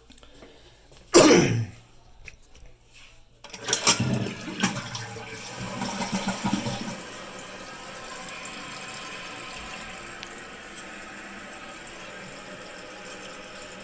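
A brief loud sound about a second in, then a Jacuzzi Primo toilet flushing: a loud rush of water for about three seconds, settling into the steady hiss of the tank refilling.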